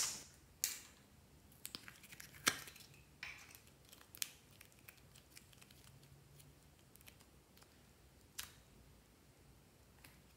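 Soft modelling clay being pulled apart and dropped onto sticky slime in a glass bowl: scattered short sticky clicks and crackles, loudest right at the start, several more in the first few seconds and one more near the end.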